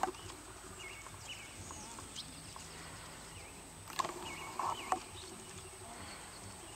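A horse and a donkey walking on grass, with faint footfalls. Two sharp knocks come about four and five seconds in.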